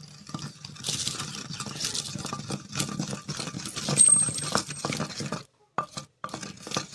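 Wooden pestle grinding a wet mixture in a clay mortar: quick rubbing and knocking strokes against the clay, then a few separate knocks near the end.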